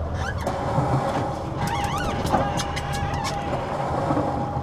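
Boat engine running with a steady low rumble, and a steady high whine over it from about a second and a half in.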